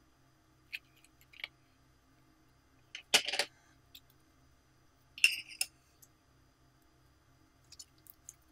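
Hands squeezing and kneading a ball of glitter slime, giving a few short sticky clicks and squishes. The loudest come about three seconds in and again about five seconds in, with faint ticks near the end.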